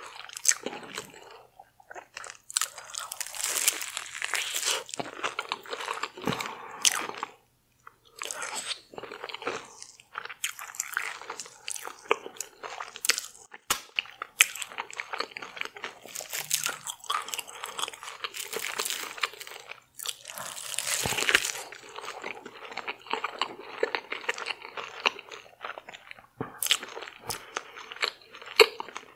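Close-miked eating sounds: bites and chewing of deep-fried, Doritos-coated seafood, crunching in irregular bursts with short pauses.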